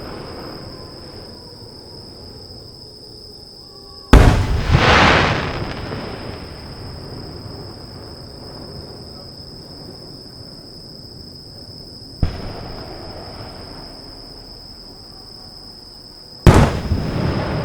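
Aerial fireworks shells bursting. Two big booms come about four seconds in and near the end, each followed by a rumbling tail of a second or two. A smaller single bang comes about twelve seconds in.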